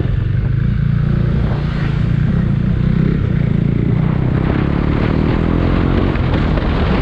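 KTM Duke 390's single-cylinder engine running through an aftermarket Akrapovic-style exhaust while riding. It holds steady, then climbs in pitch from about halfway in as the bike accelerates.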